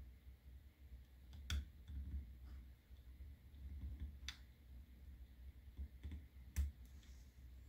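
Light, sharp plastic clicks as a thin plastic stick prods and presses a small cable connector into a drone's circuit board and plastic shell: three clearer clicks a couple of seconds apart, with fainter taps between.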